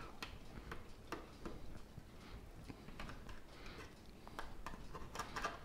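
Faint, irregular clicks and light scrapes of a knife cutting a piece of meatloaf in a disposable aluminum foil pan.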